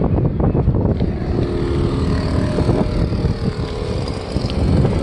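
Wind rumbling on the microphone, uneven and loud, with a faint steady hum behind it for a second or so.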